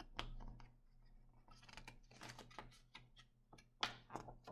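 Faint rustling and soft clicks of a hardcover picture book's paper page being handled and turned, with a sharper brush of paper near the end.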